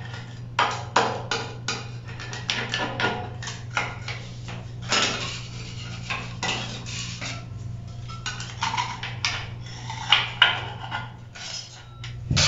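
Hand-held metal scraper blade scraping old silicone sealant out of the joint between shower floor and wall tiles, in quick, irregular strokes with the blade clicking and grating on the tile. A steady low hum runs underneath.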